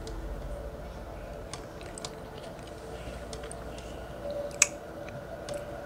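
A person chewing french fries close to the microphone, with soft wet mouth clicks and smacking and one sharper click about four and a half seconds in.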